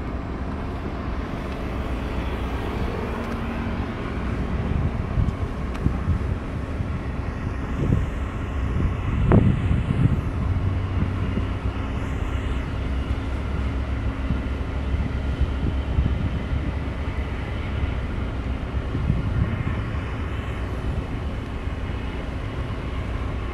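Steady low rumble of the harbour tug's diesel engines, with wind buffeting the microphone. A brief louder bump about nine seconds in.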